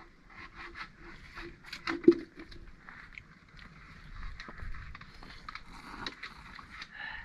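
A knife carving a makeshift spoon: irregular short scrapes and clicks, with one louder knock about two seconds in.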